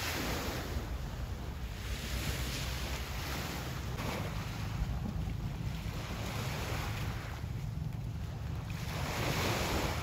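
Small sea waves washing onto a sandy shore, with wind buffeting the microphone. The wash of the surf swells up just after the start and again near the end.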